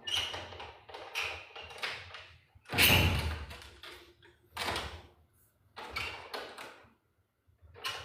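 A series of irregular knocks or strikes, each dying away within a second. The loudest comes about three seconds in, and the knocks pause briefly before one more near the end.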